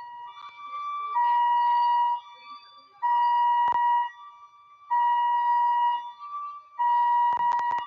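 Electronic alarm sounding in a repeating pattern: a steady, loud beep about a second long, roughly every two seconds, with a slightly higher, quieter tone in the gaps. A single sharp click comes in the middle, and a quick cluster of clicks or knocks near the end.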